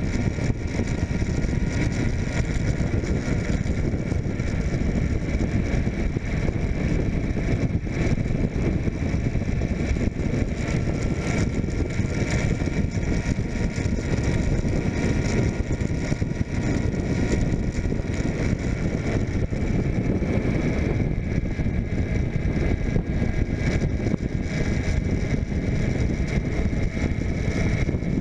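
Suzuki GSF600 Bandit's inline-four engine running at a steady road speed, mixed with a steady rush of wind over the microphone.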